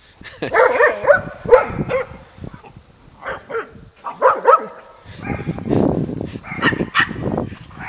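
Dogs barking and yipping in several separate bursts.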